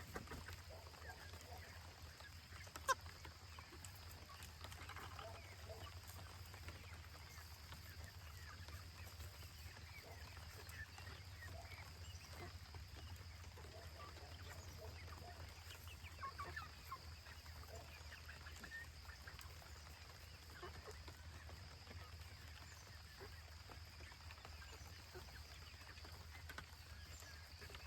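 Poultry calling faintly, with many short calls and clucks scattered throughout over a steady low hum. One sharp click comes about three seconds in.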